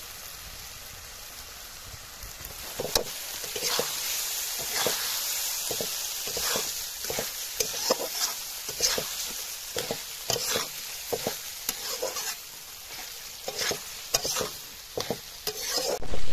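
Metal spatula stirring and scraping tomatoes and spice paste in a metal kadai, with the masala sizzling under it. The sizzle is steady at first; the scraping strokes start about three seconds in and come roughly one or two a second, with one louder knock at the very end.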